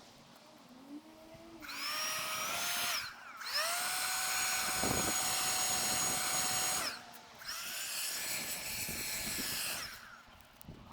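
A small high-speed electric motor whining in three bursts, each rising in pitch as it spins up, holding steady, then winding down, with a hiss alongside; the middle burst is the longest.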